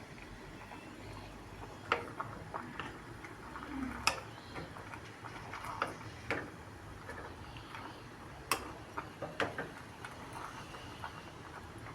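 Light clicks and taps at uneven intervals, a dozen or so, over a steady low background hiss.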